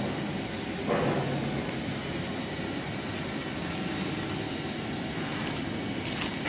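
Clear plastic bag rustling and crinkling as paper rolls are slid into it and the bag is handled, in short bursts about a second in and again near four seconds, over a steady background hum.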